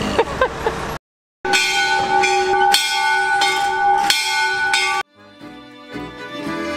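A small rooftop bell ringing, struck several times at roughly one-second intervals, each stroke ringing on with a clear steady tone. It cuts off suddenly near the end and violin music comes in.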